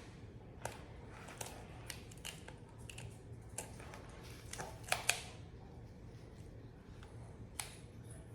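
Faint scattered clicks, taps and rustles of hands working an overgrip onto a pickleball paddle handle, with two louder taps about five seconds in.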